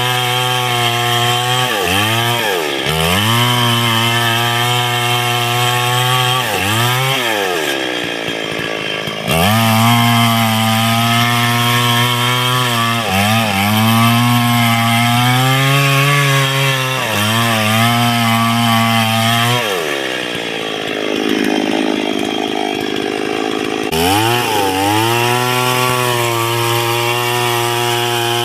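Large two-stroke chainsaw cutting into a tree trunk at full throttle, its engine pitch sagging under load and recovering again and again. Twice the throttle drops and the engine falls toward idle, about 8 seconds in and again about 20 seconds in, before revving back up.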